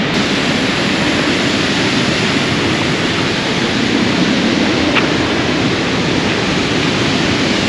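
Mountain waterfall rushing: a steady, loud roar of falling water, growing closer along the gorge path.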